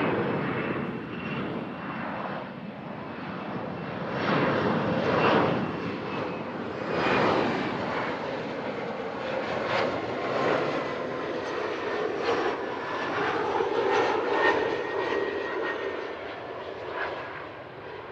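Jet airliner engines passing the airfield: a loud, surging rush of noise with a faint high whine that slowly falls in pitch, easing off near the end.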